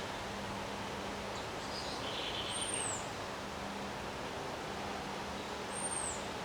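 Steady rushing noise of storm wind. A bird gives two short, high, arched calls about three seconds apart, the first just after a brief chatter.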